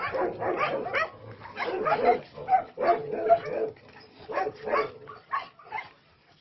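Several dogs barking and yipping, short calls overlapping one another, thinning out after about four seconds and dying away near the end.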